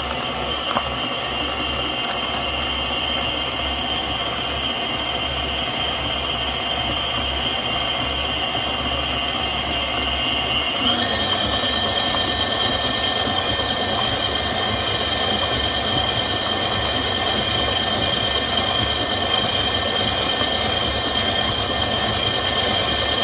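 Electric stand mixer running steadily, its flat beater turning through cake batter of eggs beaten into creamed butter and sugar in a steel bowl; a motor whine with a steady high tone. About eleven seconds in the whine steps up slightly in pitch.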